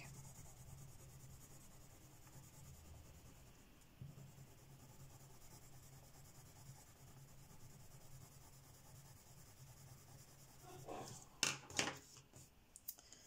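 Derwent Lightfast coloured pencil shading back and forth on paper to lay down a colour swatch, faint and steady. Near the end a few sharp taps are louder than the shading.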